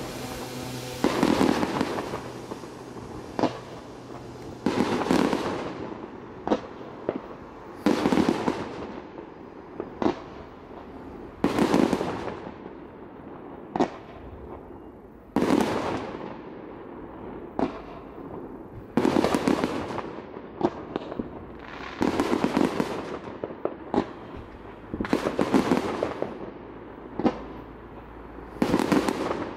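Fireworks bursting: about twenty sharp bangs, one every one to three seconds, each trailing off in a rumbling tail.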